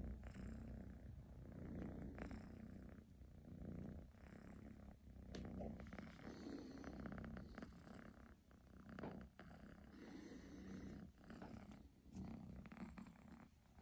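A kitten purring quietly while being stroked on the head, a low rumble that swells and fades every couple of seconds.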